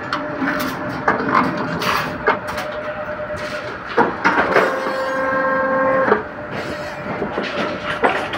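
Rebar bending machine working ribbed steel bars: steel clanks and knocks as the bars are handled and seated on the table, then a steady whine for about two seconds near the middle while the turntable turns and bends the bars around the mandrel into rings.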